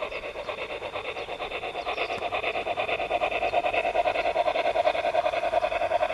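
Sound decoder of a garden-scale model steam locomotive playing rapid, steady chuffing through its small loudspeaker, growing louder as the train comes closer.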